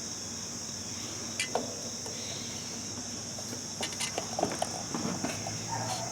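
Light, scattered clicks and taps of small parts being handled while working on a fan motor's wiring, over a steady high-pitched insect chorus.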